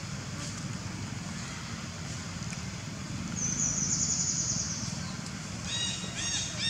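Birds calling outdoors: a high, rapid trill about halfway through, then three short chirps that rise and fall near the end, over a steady low hum.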